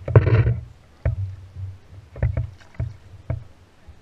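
Several irregular knocks and low thumps against a wooden canoe, picked up through the boat itself, with a short rush of noise in the first half second.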